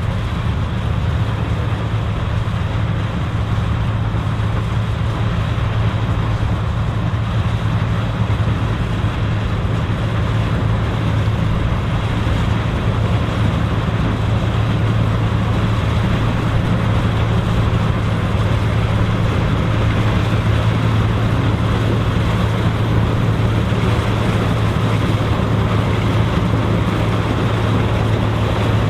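Vintage combine harvester running steadily while harvesting corn: a constant low engine hum with the steady noise of the machinery over it.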